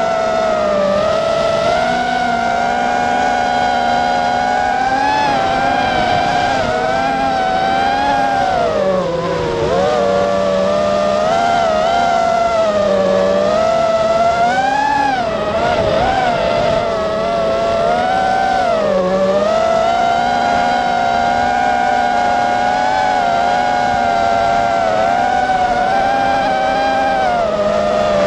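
FPV quadcopter's electric motors whining, the pitch rising and falling with the throttle as it chases and banks, with a few sharp dips and swoops.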